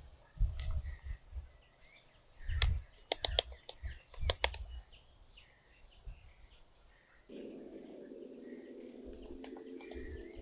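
Insects trilling on one steady high note throughout, with a run of about eight sharp knocks close together near the middle. A low hum comes in about seven seconds in.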